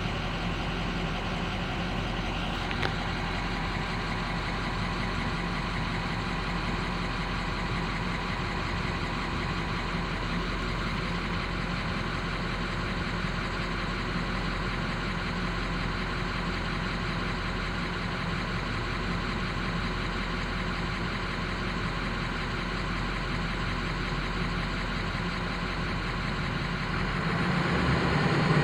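Ford 6.0-litre Power Stroke V8 diesel running steadily at idle, getting louder near the end.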